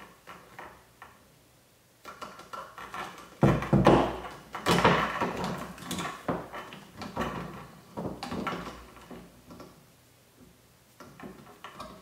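Hand wire stripper clicking and scraping as it strips insulation off the ends of household wires in a plastic electrical box, with handling rustles; a busy run of irregular clicks and scrapes from about two seconds in, thinning out near the end.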